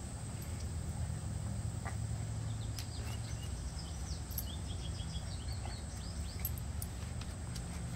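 Backyard ambience: a steady low rumble with a run of quick, high bird chirps from about three to five seconds in.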